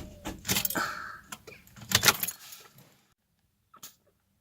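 A car's starter clicking and the ignition keys jangling as the key is turned with a flat battery, the engine not turning over. The clicks stop a little over two seconds in.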